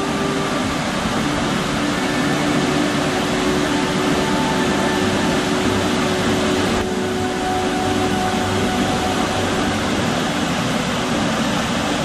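Burgess Falls, a tall cascade waterfall, roaring: a steady rush of falling water, its sound shifting slightly about seven seconds in.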